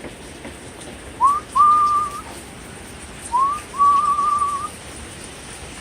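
A person whistling twice. Each time it is a quick rising swoop followed by a longer held note, and the second note wavers. A steady hiss of wind and rain runs underneath.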